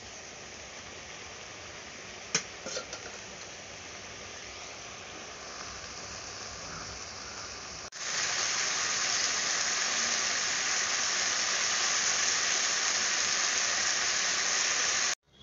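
Okra and potato curry sizzling in a metal wok as it nears done, with a metal spatula clinking against the pan about two seconds in. After about eight seconds the sizzle turns louder and higher, then cuts off abruptly near the end.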